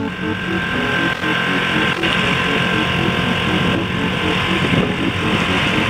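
Boat engine running steadily while under way, a constant drone with a wash of wind and water noise over it.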